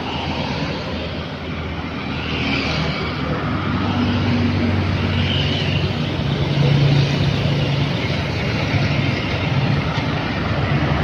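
Road traffic passing close by: a car, then a motorcycle, then a dump truck's diesel engine, with the low engine hum getting louder about halfway through.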